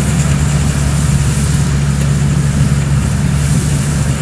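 A homemade rice combine harvester's engine running steadily under load while the machine cuts and threshes rice, a constant low hum with no change in pitch.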